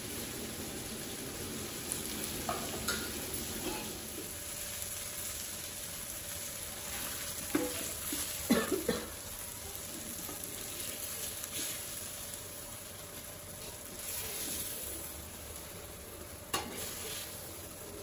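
Pomfret fish pieces sizzling as they shallow-fry in oil in a flat pan, with a metal spatula scraping and knocking against the pan several times, loudest about eight to nine seconds in. The sizzle eases after about four seconds.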